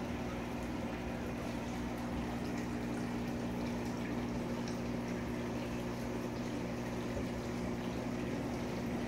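Steady low hum and bubbling of aquarium equipment: an air-driven sponge filter bubbling in the fish tank.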